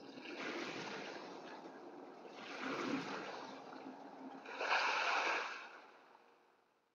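Splashing water sound effect: a noisy gush of water that swells three times, loudest about five seconds in, then fades out.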